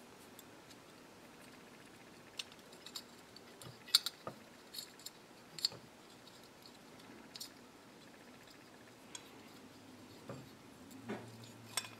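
Faint, irregular light metallic clicks and taps as the small float hinge pin is worked into a Briggs & Stratton carburetor and the float and needle parts are handled.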